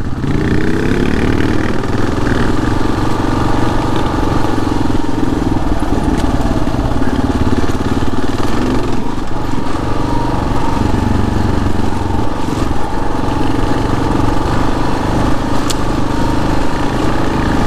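Kawasaki KLR650's single-cylinder engine running steadily as the motorcycle rides along a dirt trail. The engine note climbs briefly in the first second, then holds.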